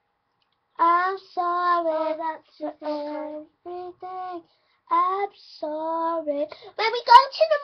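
A child singing a tune alone in short phrases of held, gliding notes, starting about a second in after a brief pause. A sharp knock near the end.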